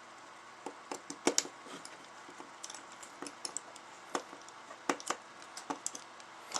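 Scattered small clicks and taps of a screwdriver working screws into a plastic airsoft pistol's body. The sharpest clicks come about a second in and again around four to five seconds.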